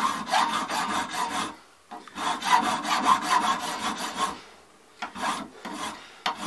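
A bastard file being worked by hand across a cast brass rifle butt plate, filing down the stub of the casting sprue. Two long runs of rasping strokes, then a few short strokes near the end.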